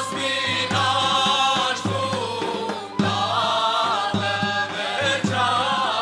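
Armenian folk song: a male lead voice sings with a chorus over a steady drum beat and a pulsing low bass note.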